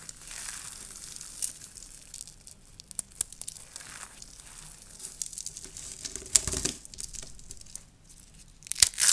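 Dry soap curls crackling and crunching as they are crushed, a continuous crisp crackle of many small snaps. A heavier crunch comes a little past six seconds in, and sharp snaps near the end.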